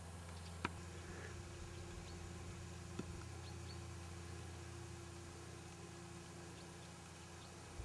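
Faint steady low hum with a quieter steady tone above it, two sharp clicks about half a second and three seconds in, and a few faint high chirps.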